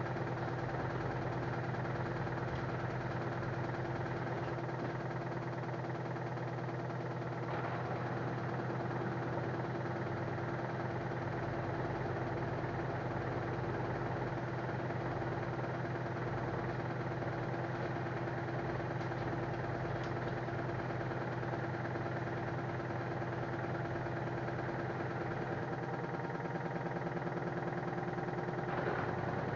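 LG F1089ND front-loading washing machine running, its drum turning at a steady speed with a constant motor hum.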